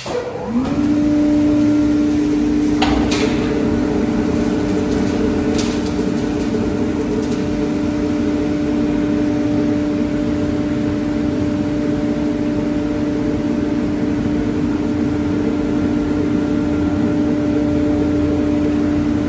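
CNC machine spindle spinning up with a rising whine, then running at a steady pitch over a noisy haze, with a few sharp clicks a few seconds in.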